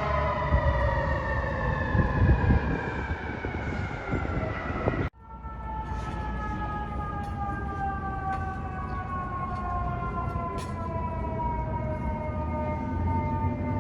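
Fire truck siren sounding over the rumble of the truck's engine, its pitch sliding slowly and steadily down. About five seconds in, the sound cuts off abruptly and another siren starts, also falling slowly in pitch.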